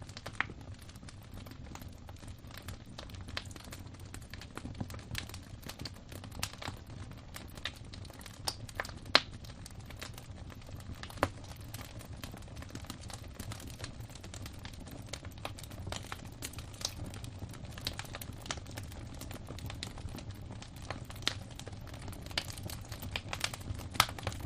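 Wood fire burning in a fireplace: irregular crackles and snaps over a low steady rumble of the flames, with a few sharper, louder pops scattered through.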